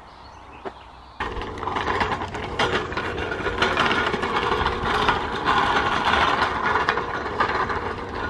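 Hand truck's small wheels rolling over a gravel road, a continuous rattling and crunching that starts abruptly about a second in.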